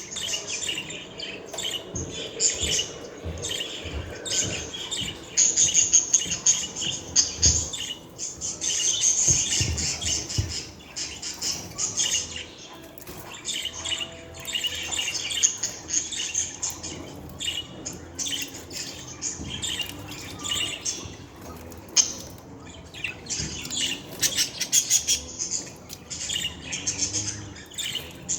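Budgerigar warbling: a continuous stream of fast, high chirps and chatter, louder in a couple of stretches.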